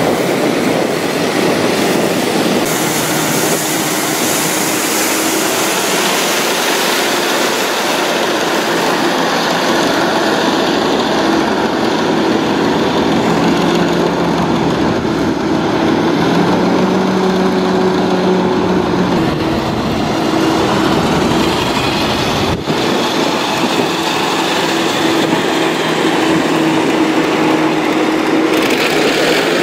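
Personal hovercraft's engine and ducted fan running steadily over water: a loud, continuous drone with a humming note that shifts a little in pitch, over a wash of air and water noise.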